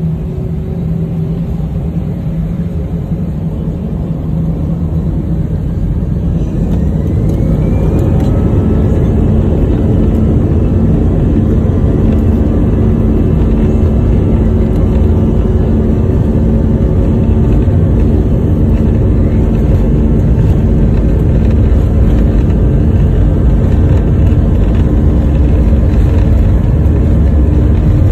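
Airliner's jet engines heard from inside the cabin, spooling up to takeoff thrust for the takeoff roll. The sound grows louder over the first several seconds, with a rising whine about seven seconds in, then holds at a steady loud level with a deep rumble underneath.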